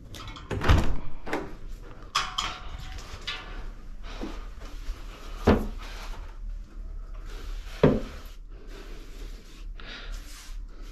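Cabinet doors being opened and bumped shut: four sharp knocks, the loudest less than a second in, the others at about two, five and a half and eight seconds, with rustling handling noise between them.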